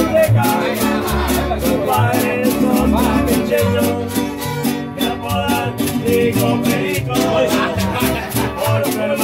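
Live string band of fiddles and acoustic guitars playing Honduran folk music: a steady strummed guitar rhythm under the fiddle melody, with low bass notes.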